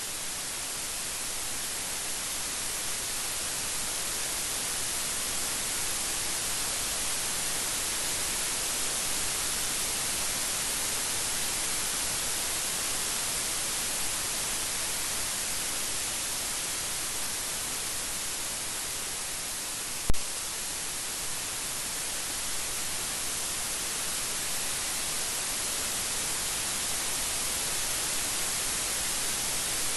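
Steady rain, an even hiss with no thunder. A single sharp click stands out about two-thirds of the way through.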